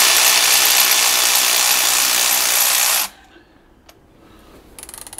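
A loud steady hiss for about three seconds that cuts off suddenly, then a socket ratchet clicking rapidly near the end as a spark plug is undone.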